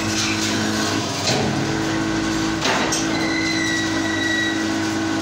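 Hydraulic scrap press running with a steady motor-and-pump hum, with sharp metal clanks about a second in and again halfway through, and a thin high whine for a second or so in the second half.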